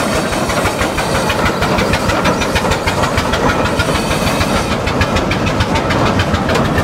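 Achenseebahn metre-gauge rack steam locomotive No. 2 'Hermann' working past with its carriages: a quick, even beat of exhaust over a steady hiss of steam, with the carriages rattling on the track.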